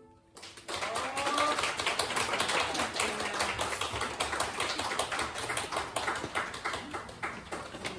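Audience applauding at the end of a flute piece, a dense patter of hand claps starting about half a second in and thinning out near the end.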